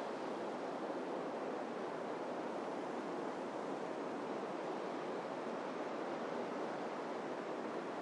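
Ocean surf breaking on the shore: a steady, continuous wash of waves with no single crash standing out.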